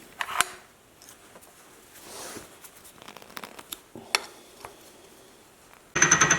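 Scattered light clicks and knocks of tools and metal being handled. Near the end a loud power tool starts up with a fast, even rhythm.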